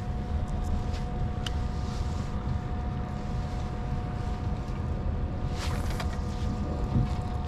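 Steady hum of a Minn Kota Terrova electric trolling motor pushing the skiff slowly, under a low rumble of wind on the microphone. A brief noise about six seconds in.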